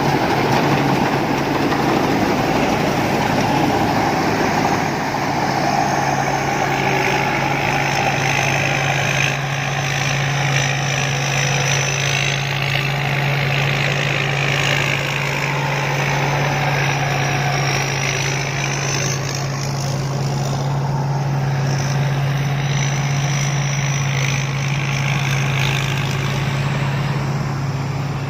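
Rice combine harvester running steadily: a constant low engine hum under a dense mechanical din, with a higher whine that rises and falls every few seconds.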